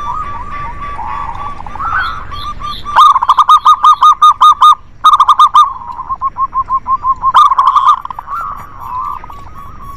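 Zebra doves (local perkutut), more than one bird, cooing: fast runs of short clipped notes at about seven a second, the loudest run in the middle, with softer overlapping calls around it.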